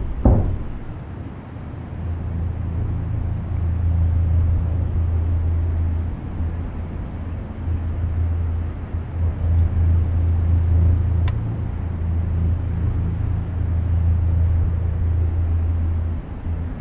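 Two heavy thuds at the start, then a steady low rumbling drone that swells and eases, typical of a suspense-film sound bed. A single faint click comes about eleven seconds in.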